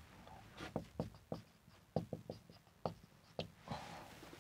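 Marker pen writing on a whiteboard: a series of short, irregular faint taps and scratches as the words are written, stopping about three and a half seconds in.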